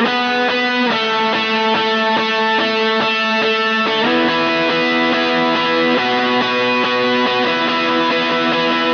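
Electric guitar played on its Lambertones Grinder bridge pickup: chords picked in an even rhythm and left ringing, changing about a second in, then near four, six and seven and a half seconds.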